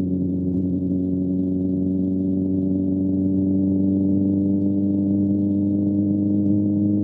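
A motor running steadily with a smooth hum whose pitch slowly creeps upward.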